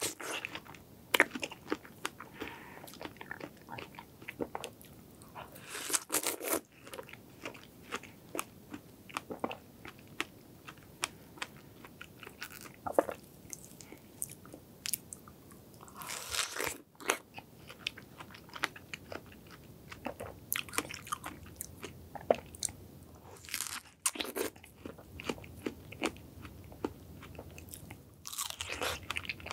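Close-miked biting and chewing of a large fresh strawberry with whipped cream: wet crunching with many quick juicy clicks, and a few longer noisy bursts every several seconds.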